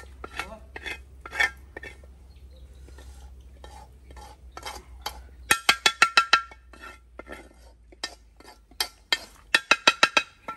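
Metal spatula scraping and knocking against a black wok as fried food is scooped out into a bowl: irregular clinks and scrapes, with two quick runs of ringing taps, one about five and a half seconds in and one near the end.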